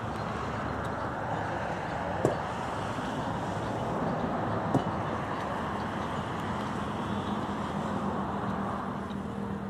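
Steady outdoor road-traffic noise, with a sharp click about two seconds in and a fainter one near five seconds. A low steady hum joins in during the second half.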